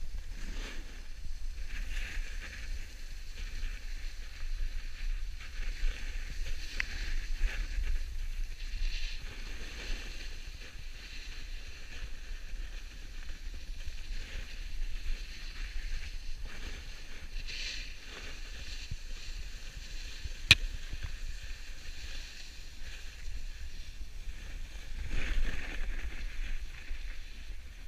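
Snow hissing and scraping under a board sliding down a groomed slope, swelling and fading with the turns, over a steady low rumble of wind on the microphone. A single sharp click about twenty seconds in.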